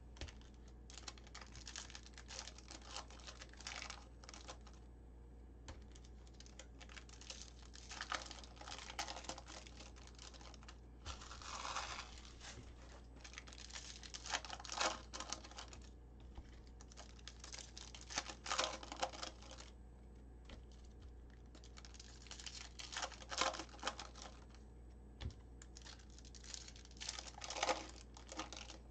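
Foil trading-card packs being torn open and crinkled, with quick light clicking and flicking of cards being thumbed through, coming in irregular bursts with short pauses.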